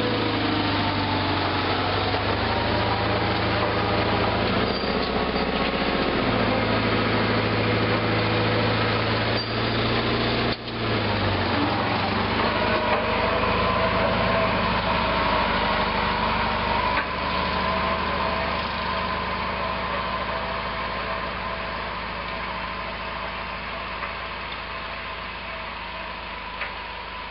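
Sears 18/6 garden tractor engine running steadily while plowing snow, its pitch dipping briefly a few seconds in and growing gradually quieter over the second half.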